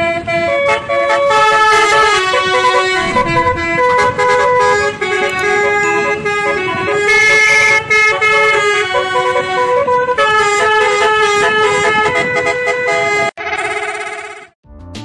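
Bus telolet horn, a multi-tone air horn playing a quick tune of stepping notes, with a brief break near the end.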